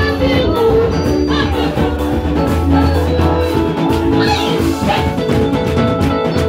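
Live church band music: an electronic keyboard playing bright, bell-like held notes over drums.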